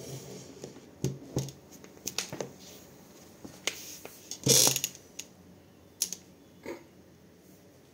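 Black-and-white domestic cat grooming itself, licking its paw and leg: a series of short, irregular clicks and rasps, the loudest about halfway through.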